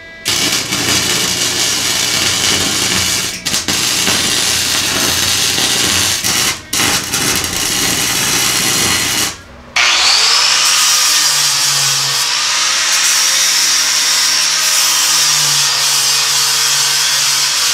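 Welder crackling and sizzling as it lays beads on the steel tube, in three runs with short breaks between. About ten seconds in, an angle grinder starts with a rising whine and runs steadily, grinding the welds smooth.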